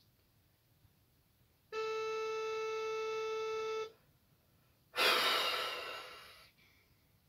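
Phone ringback tone from a Nokia handset's speaker: one steady two-second beep while the called number rings unanswered. About a second later comes a long, breathy sigh that fades away.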